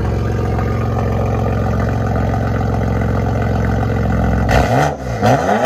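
Car engine idling steadily through an exhaust with high-flow cats, a stainless downpipe and the rear muffler deleted, then revved twice in quick succession near the end.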